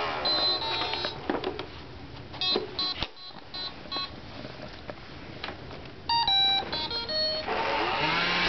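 Roomba robot vacuum stops running and gives short electronic beeps, then plays a stepped, mostly falling string of tones about six seconds in, with light clicks and knocks between. Its motor whirr starts up again near the end.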